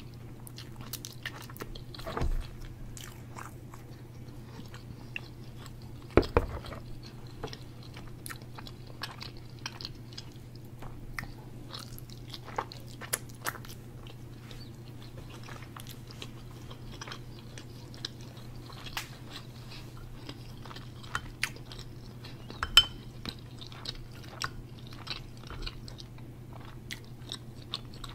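Close-miked chewing of tender pork roast, with many small mouth clicks and a few louder knocks, over a steady low hum.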